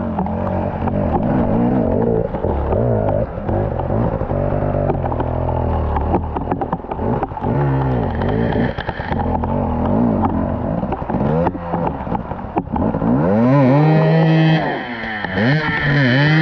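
Off-road motorcycle engine revved hard again and again, its pitch climbing and dropping back in quick bursts, the loudest near the end.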